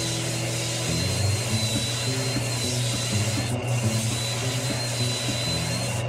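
Sandpaper sanding a spinning spalted silver maple bowl on a wood lathe: a steady rasping hiss with a thin high whine, over background music.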